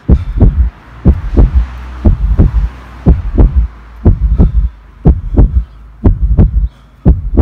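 Heartbeat sound effect: a loud, deep double thump, lub-dub, repeating about once a second.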